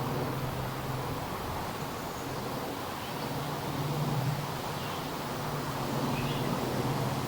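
Low, steady drone of a distant aircraft over outdoor forest ambience, with a few faint bird calls in the second half.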